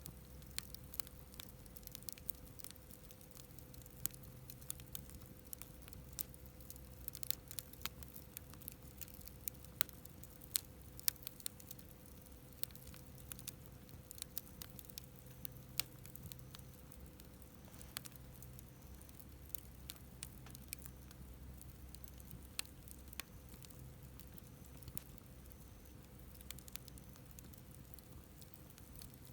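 Firewood burning in a campfire, crackling with frequent small, irregular pops and snaps.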